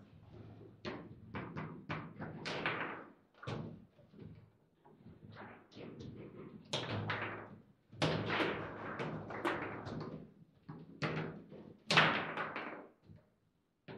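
Foosball table in play: irregular sharp knocks and bangs as the ball is struck by the plastic figures and rebounds off the table walls, amid rattling of the rods, the loudest bangs about eight and twelve seconds in.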